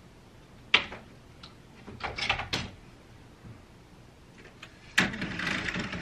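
Sliding wardrobe door on an IKEA Pax frame being fitted into its track: a sharp click about a second in, a few knocks around two seconds, then a sudden knock and the door panel running along its track near the end.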